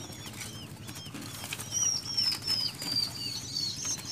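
Long-tailed shrike (cendet) nestlings begging: repeated short chirps, then from just under two seconds in a run of higher calls, about four a second, falling slightly in pitch. Light clicks and rustles of the grass nest being handled come through under the calls.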